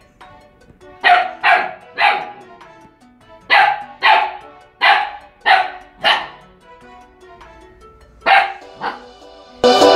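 Akita Inu puppy barking about ten times, in short runs of two or three sharp barks, over quiet background music that turns loud near the end.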